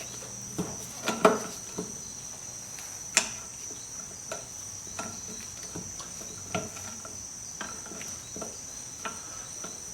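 Scattered metallic clicks and light knocks of a large split pin being worked out of a wheel hub nut with hand tools, the sharpest knocks about one and three seconds in. A steady high-pitched tone runs underneath.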